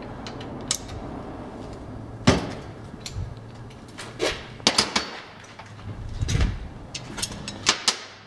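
Scattered metal clanks and clicks of a speed wrench and Model A Ford transmission parts being handled on a workbench, with the loudest knock a little over two seconds in and a cluster of sharper clicks near the end.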